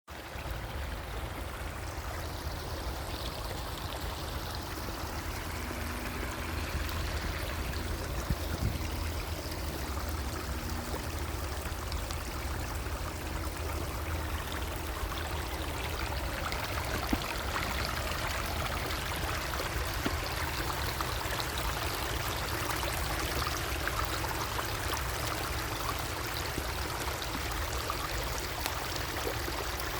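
Small stream flowing steadily, water bubbling and trickling.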